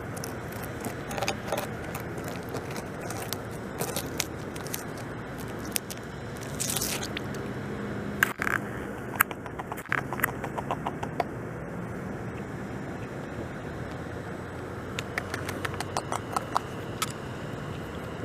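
Beaver gnawing bark off a log: bursts of scraping and crunching bites, with a run of quick clicks about ten seconds in and another cluster near the end, over steady background noise.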